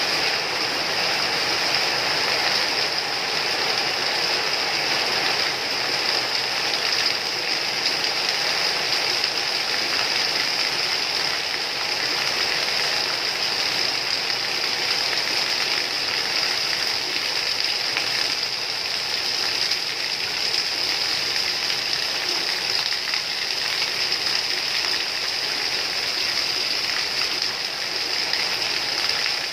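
Rain falling steadily: an even, unbroken hiss of water.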